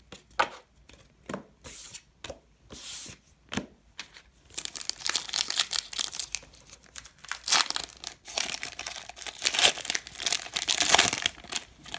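A foil trading-card pack (2018 Panini Diamond Kings) being torn open and peeled apart by hand, a dense crinkling and tearing. It starts about four and a half seconds in, after a few short separate rustles.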